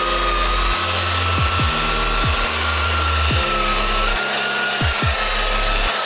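Electric rotary polisher with a foam pad, its motor whining steadily and rising slightly in pitch as it buffs the surface; the whine cuts off at the very end.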